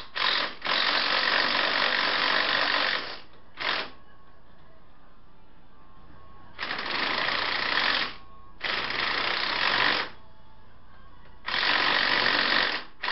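Ryobi impact wrench hammering in several bursts: a long one of about two and a half seconds, a brief blip, then three shorter bursts of about a second and a half each, as it works bolts loose while the engine is taken out.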